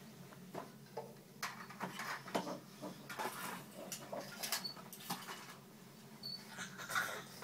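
Light scattered knocks, clicks and rustles of small children moving about on the floor and handling toys, with a couple of brief high squeaks.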